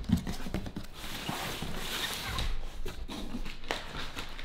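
Cardboard shipping box being opened by hand: flaps pulled back and the inner carton slid out, cardboard scraping and rustling with a few knocks.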